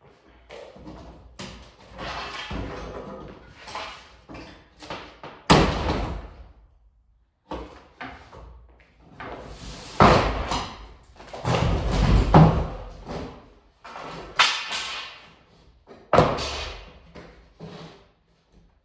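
Small sledgehammer knocking out the wooden panels of a divider wall: about five heavy blows, each followed by wood cracking and rattling, with lighter clatter between them.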